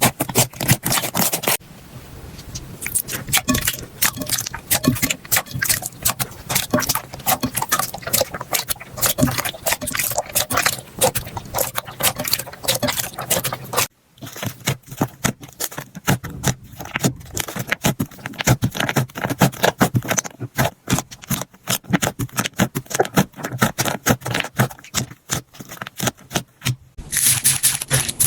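Slime being squished, poked and pressed by hand: rapid, irregular wet clicks, pops and crackles. The texture changes abruptly a couple of seconds in, about halfway through and near the end.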